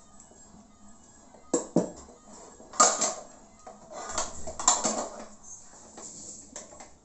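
Hand-lever metal citrus press clanking as its lever is raised and pressed down on peeled oranges: a series of sharp metal knocks and clatters, loudest about three seconds in.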